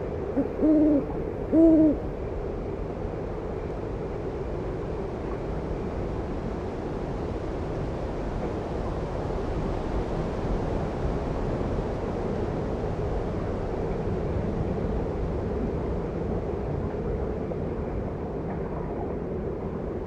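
An owl hoots twice in quick succession, two short arched hoots about a second apart, over steady wind.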